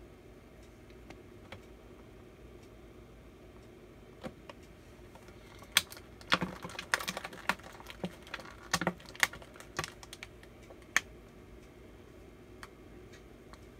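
Small plastic toy figures clicking and tapping against a hard tabletop as they are handled and set down. The sharp clicks come in an irregular cluster starting about six seconds in and lasting about five seconds.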